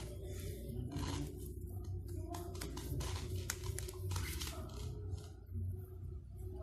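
Hands handling a Play-Doh tub and its dough: irregular scratchy rustles and small clicks, thinning out after about four and a half seconds, over a steady low hum.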